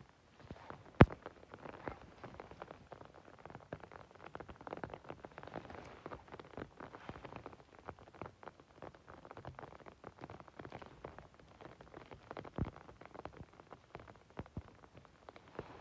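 Close rustling and crackling of a gloved hand picking mushrooms out of wet moss, with a sharp click about a second in and a duller knock about three-quarters of the way through.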